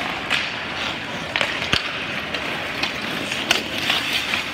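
Ice hockey play: skate blades scraping the ice under a steady hiss, with several sharp clacks of sticks and puck and one heavier knock a little under two seconds in.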